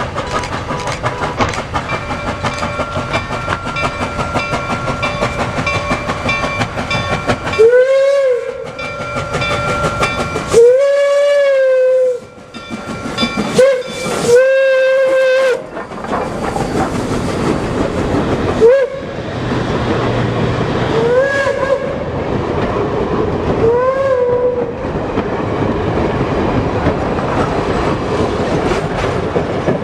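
Reading T-1 steam locomotive #2102 passing with its steam whistle blowing: two long blasts, a short one and a long one, in the grade-crossing pattern, then several shorter toots, each blast sliding up in pitch as it opens. The train's steady rumble and clickety-clack of wheels on rail run underneath.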